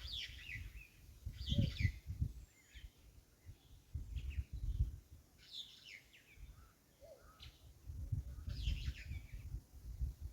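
Birds chirping and calling several times, with a low rumble on and off underneath.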